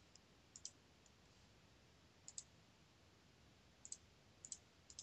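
Faint computer mouse clicks over near silence: a handful of short clicks, several in quick pairs about a tenth of a second apart.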